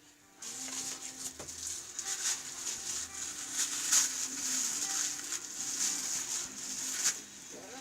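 Crinkly rustling of plastic and cardboard packaging as toy kitchen pieces are unwrapped and handled. The rustling is continuous, with many small clicks and light knocks of plastic toy parts.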